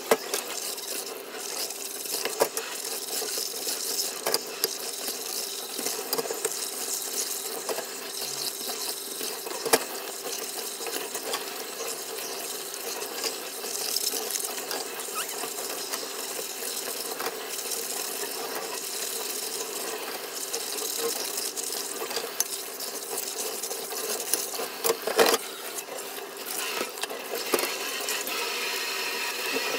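Kitchen faucet spraying a steady stream into a stainless steel sink while rubber-gloved hands rub and rinse under it. A few sharp knocks against the sink come through.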